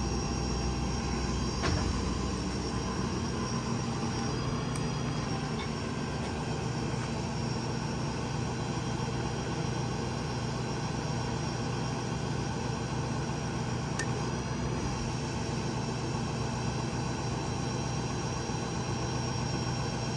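Hydraulic crane running off the Ford F-550's 6.7 L Power Stroke diesel: a steady hum of engine and hydraulic pump as the Stellar 5521 boom extends out. Two faint clicks, about two seconds in and again near the three-quarter mark.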